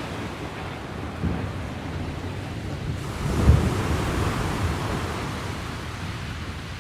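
Wind buffeting the microphone in gusty low rumbles, with a stronger gust about halfway through, over the hiss of sea surf.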